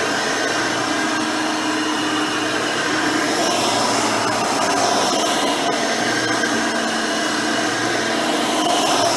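Hoover Elite 600 upright vacuum, refitted with a modern 7-amp motor and 20-blade fan, running steadily with a continuous motor whir that rises and falls slightly.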